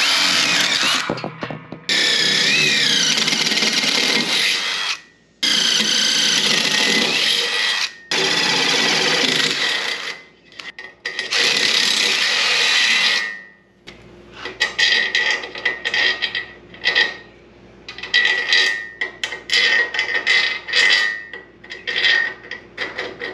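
Cordless drill boring holes through metal: several long runs of drilling, broken by short pauses, over the first half. Then a string of short metallic clicks and clinks as carriage bolts and hardware are handled and set into the drilled holes.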